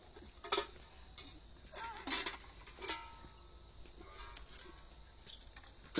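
Stainless steel spoons and a metal plate clinking against each other as they are handled: several sharp metallic clinks, some with a brief ringing tone.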